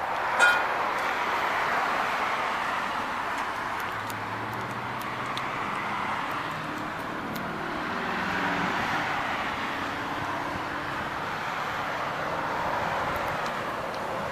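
Steady outdoor road-traffic noise that swells and fades slowly, with one sharp click about half a second in.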